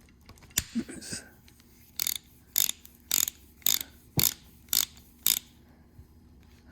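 Repaired Craftsman hand ratchet being swung back and forth, its pawl clicking over the new gear in seven short, even bursts about two a second, which shows the stripped-gear repair works. A single click comes about half a second before the bursts start.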